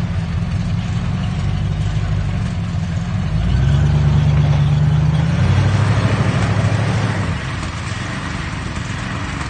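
Ford pickup truck's engine running, revving up about a third of the way in and holding higher for a few seconds, then easing back off near the end as the truck moves through snow.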